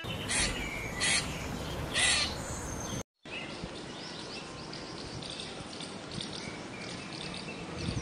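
Three harsh, noisy calls about a second apart. Then, after a short gap, small songbirds chirping rapidly over a steady background hiss.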